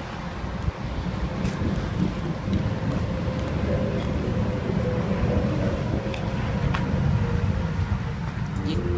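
Car driving at speed: a steady low rumble of road and engine noise, growing slowly louder.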